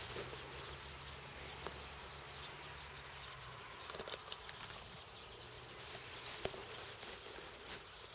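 Footsteps and the rustling of tall dry grass stems brushing against clothing as people push through the grass, faint and uneven, with scattered small clicks.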